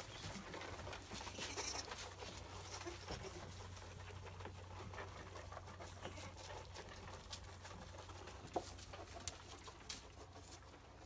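Faint scattered clicks and rustles of sheep feeding at a wooden trough and lambs moving about on straw bedding, over a low steady hum.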